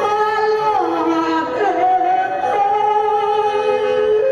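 Music carried by one melody of long held notes that slide smoothly from pitch to pitch.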